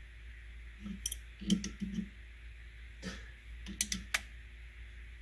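Small adjustable wrench working small nuts and bolts on the mill's motor mounting plate: a few sharp metal clicks, two about a second in and two more near the end, with softer knocks from the part being handled in between.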